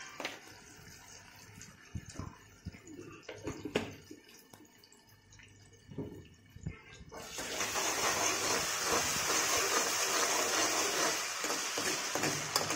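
Steel spoon clinking and scraping against an aluminium kadai as chopped onion and tomato are stirred. About seven seconds in, a loud, steady hiss starts suddenly and carries on.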